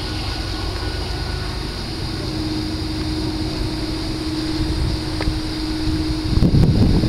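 Distant diesel locomotives of a freight train running, heard as a steady low engine drone over a low rumble. The rumble swells briefly and loudly near the end.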